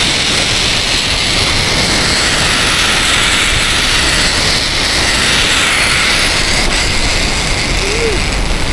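Zip-line trolley running along a steel cable: a steady rushing whir mixed with wind, its pitch swelling and then dropping a little partway through.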